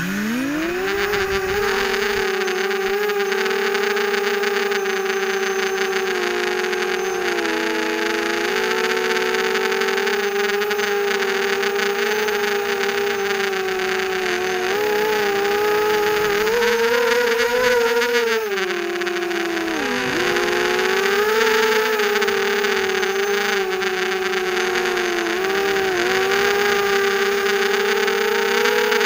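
Brushless motors and propellers of a 250 mm FPV mini quadcopter spinning up for takeoff, then a steady buzzing whine that rises and falls in pitch with the throttle as it flies. Heard from a camera mounted on the quad itself, so the motors are loud and close. There is a surge about 17 seconds in and a brief drop in pitch about 20 seconds in.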